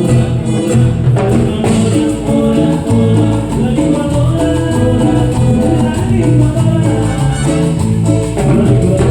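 Cumbia band music: an instrumental passage with a steady beat over bass and percussion, and no words sung.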